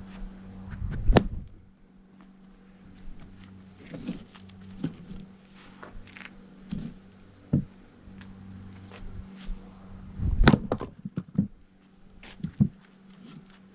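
Axe blows splitting oak firewood: a sharp strike about a second in, and a louder strike followed by several quick knocks of wood about ten seconds in, with lighter wooden knocks between. A steady low hum runs underneath.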